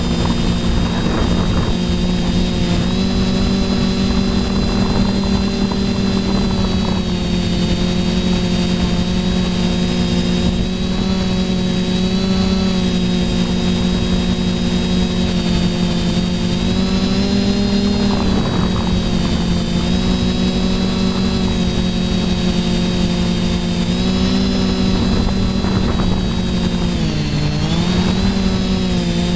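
Quadcopter's electric motors and propellers whining steadily, heard close up from the camera on board, the pitch shifting a little with throttle and dipping briefly then rising again near the end.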